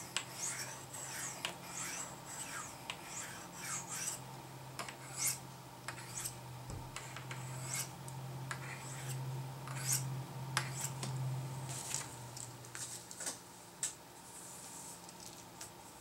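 Small Swiss Army knife blade drawn down the ceramic rods of a Spyderco Tri-Angle Sharpmaker: a series of short, light scraping strokes, several a second at times and sparser near the end.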